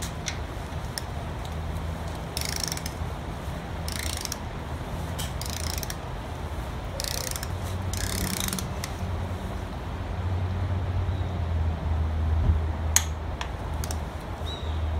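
A click-type torque wrench ratcheting in about five short strokes a second or two apart as it tightens the oil pickup tube bolt on an LS1 V8 block toward 18 foot-pounds. A sharp click comes near the end, over a steady low hum.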